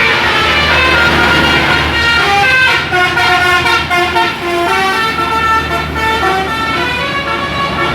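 Bus 'telolet' musical horn playing a quick tune of short notes that jump between pitches, over the low rumble of the bus engine.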